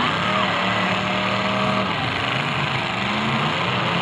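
Several full-size demolition derby cars' engines running and revving together, their pitch rising and falling as the cars manoeuvre in the dirt arena.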